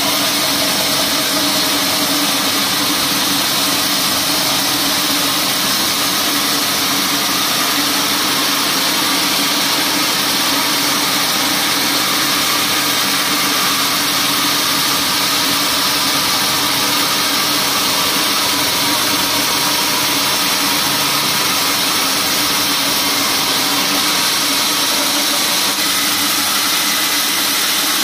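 Large band sawmill running steadily, a constant mechanical drone with a strong hiss that holds the same level and pitch throughout.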